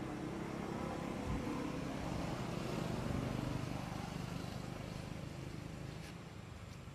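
A motor vehicle passing: a low engine hum that swells to its loudest about three seconds in, then fades.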